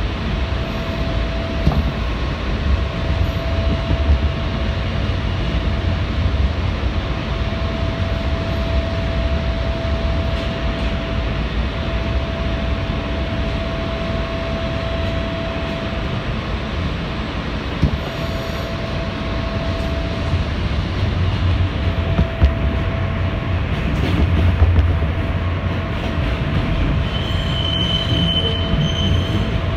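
R160 subway train running express on elevated track: a steady rumble of wheels on rail with an on-and-off motor tone and scattered clicks. Near the end a brief high wheel squeal comes in as the train crosses over switches.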